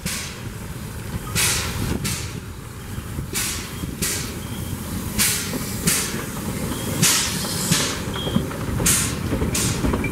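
FCL 353 steam locomotive working past at slow speed: sharp exhaust chuffs about once a second over the low rumble of its running gear, then its coaches rolling by near the end.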